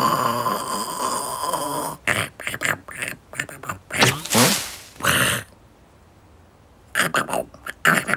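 A cartoon hedgehog's wordless voiced babble: a long held note for about two seconds, then short clicking and chattering sounds and brief exclamations, with a pause a little after the middle.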